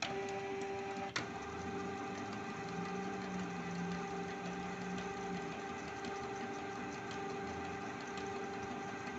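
Canon Pixma G3411 ink-tank printer's internal mechanism running with a steady motor whir, still working through its initial ink-charging procedure. Two sharp clicks come at the start and about a second in, and a lower hum joins for a few seconds in the middle.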